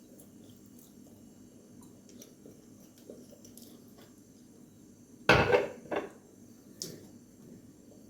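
Dishes clattering: a loud knock of crockery or cutlery about five seconds in, a smaller one just after and a faint click about a second and a half later.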